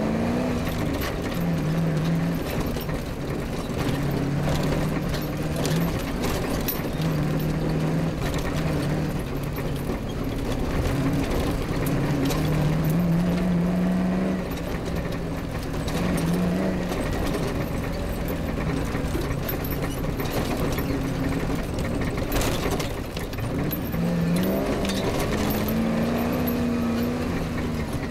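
Off-road rally car's engine running under load, its revs rising and falling as it drives over rough grass, with scattered knocks and rattles from the bodywork over bumps and steady wind and road noise.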